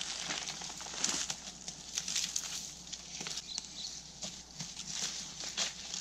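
Dry twigs and deadwood crackling and snapping at irregular intervals, with rustling of undergrowth, as brushwood is gathered by hand.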